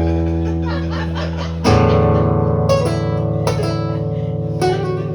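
Acoustic guitar playing: a chord rings on and a second, louder chord is strummed a little under two seconds in. Single notes are picked three times over it as it dies away.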